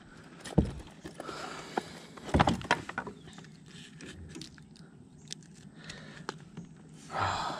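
Scattered small clicks and knocks from handling a just-caught largemouth bass and tackle in a plastic kayak. The loudest knock comes about two and a half seconds in.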